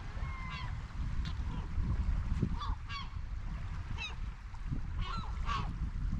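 Gulls calling: several short, harsh calls in quick succession, over a steady low rumble.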